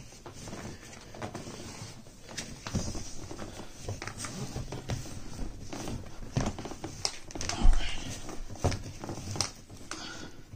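Handling noise of a strap being threaded through metal buckles on a compressed mattress in a plastic vacuum bag: irregular rustles of the plastic and small clicks of the buckle, with one louder thump about three-quarters of the way through.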